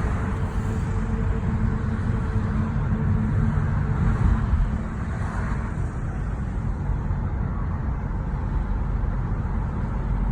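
A car being driven: steady low road and engine rumble.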